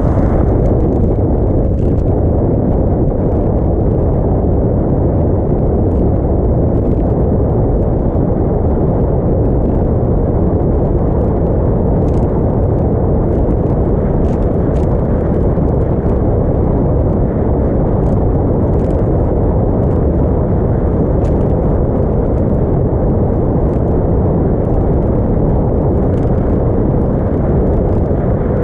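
Small motorboat underway at speed: a steady, loud rush of wind buffeting the microphone, mixed with engine and water noise, with faint scattered ticks on top.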